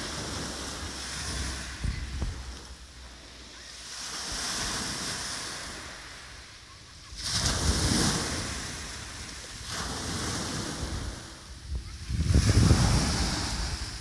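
Sea waves breaking on a pebble beach and washing back, rising and falling in surges every few seconds, the loudest near the end, with wind rumbling on the microphone.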